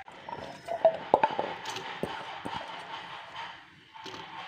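Halved shallots dropped by hand onto washed rice in an aluminium pressure cooker pot: a few scattered soft knocks and taps, clustered about a second in, with a faint steady tone in the background.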